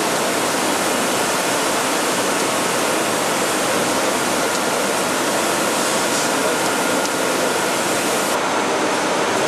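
Steady rushing hiss of factory machinery and air flow on a production line, with a faint steady whine running under it.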